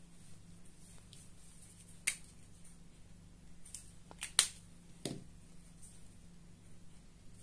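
Sharp plastic clicks of a highlighter cap being pulled off and snapped back on, the loudest pair close together just past four seconds, then a duller knock as the marker is set down on the table, over a faint steady low hum.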